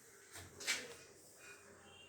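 Two short, sharp knocks, about a third of a second apart, the second one louder.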